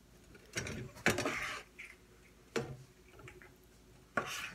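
Kitchen utensils clicking and knocking against a frying pan: a handful of separate sharp knocks, the strongest about a second in and near the end, a couple followed by a short scrape.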